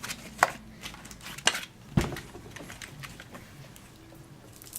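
A few sharp clicks and knocks as the second bead of a pushchair tyre is worked onto its wheel rim, the loudest about two seconds in, then only quiet handling.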